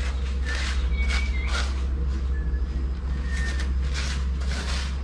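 Short scrapes and rustles as pieces of a concrete plant-pot leg mould are fitted together over damp cement-sand mortar, over a steady low rumble.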